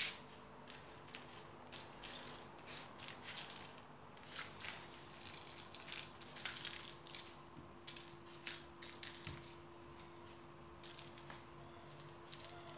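Faint, irregular scratching and scraping of kittens' claws and paws on a tile floor as they bat at and chase a toy mouse.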